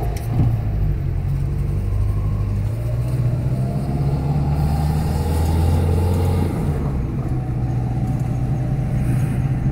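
Car engine and road noise heard from inside the cabin while driving: a steady low drone that shifts in pitch a couple of times.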